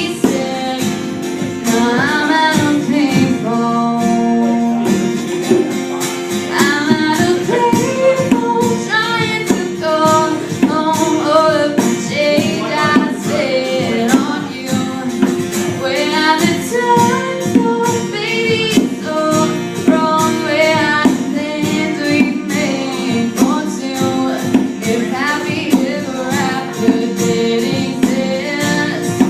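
Music with a singing voice over guitar and a regular beat.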